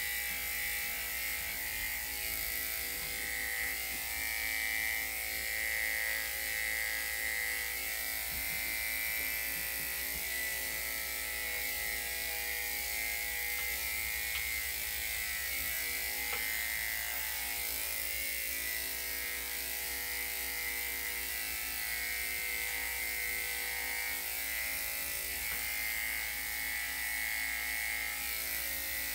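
Electric dog grooming clippers running steadily with an even hum while clipping the dog's coat.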